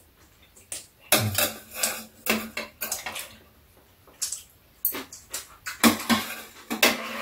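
Chopsticks and spoons clicking and scraping against stainless steel dishes and bowls during a meal: a rapid run of sharp clinks and clatters, busiest about a second in and again near the end.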